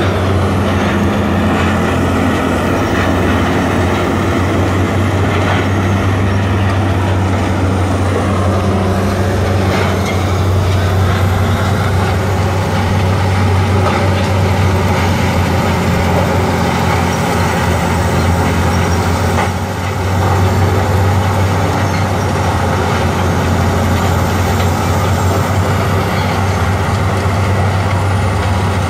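Heavy diesel machinery running steadily under load: a Hogzilla tub grinder and a Komatsu PC210LC-10 excavator working together, a deep constant engine drone with rough mechanical noise over it, dipping briefly about two-thirds through.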